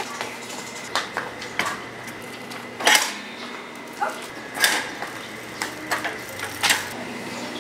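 Scattered sharp knocks and light metallic clicks, several seconds apart with the loudest about three seconds in, from a person coming down concrete steps and taking hold of a bicycle.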